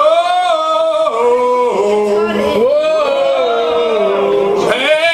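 A man singing live, without words that can be made out, in long held notes that slide up and down in pitch.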